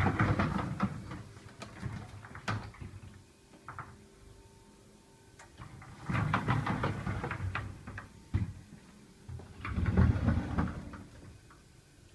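Kitchen cupboard doors being opened and shut by hand, with knocks and rattles of the doors and their contents in three main bursts: at the start, around the middle, and loudest near the end, over a faint steady hum.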